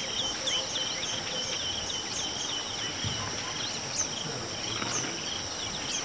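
Bush ambience: a steady high-pitched insect drone, with a bird giving a quick series of short falling chirps that thins out after about a second and a half, then a few scattered chirps.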